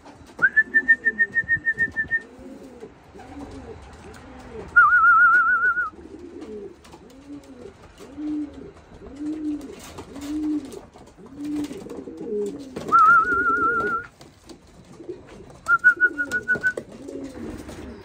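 Racing pigeons cooing, a low rising-and-falling coo about once a second, over and over. Four times a whistle is blown in a loud, quickly warbling trill, a longer one at the start and three shorter ones later: the whistle used to call the young birds in to trap.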